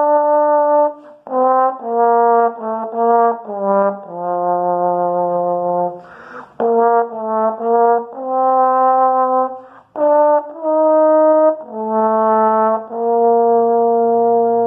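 Batist trombone played solo: a melody of separate notes, some held for about two seconds, with quick breaths between phrases about six and a half and ten seconds in.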